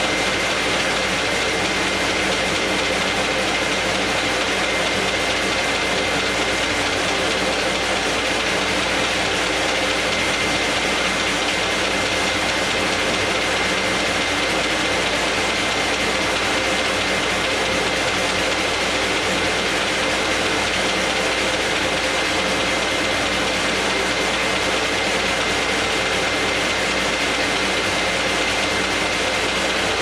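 MBO T49 buckle paper folder running at full speed, feeding and letter-folding sheets: a steady, dense mechanical clatter of rollers and belts with a constant high whine.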